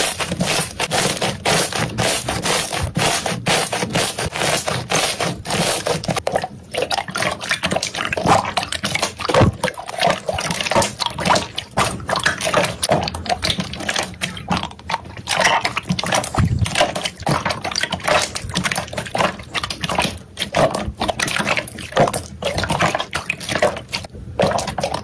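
Slime being squished, poked and stretched by hand, with dense wet crackling and popping. The texture of the sound changes about six seconds in.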